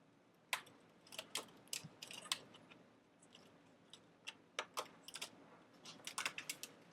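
Irregular light clicks and taps, a dozen or so, from the parts of an iBook G4 laptop and its bottom shield being handled and positioned.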